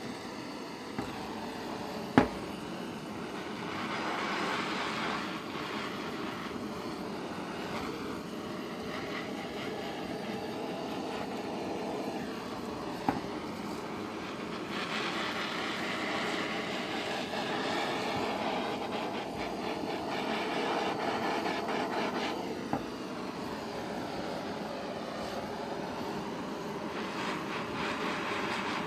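Gas blowtorch flame hissing steadily while it heats a steel hatchet head, swelling and easing as the torch moves. Two sharp knocks cut through it, the louder one about two seconds in and a fainter one near the middle.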